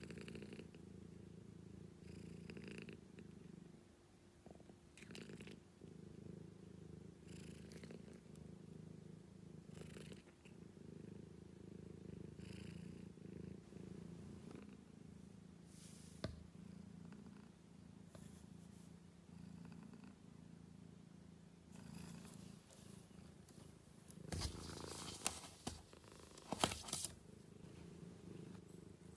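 Domestic cat purring steadily. Near the end there is a short run of rustling and a few sharp clicks.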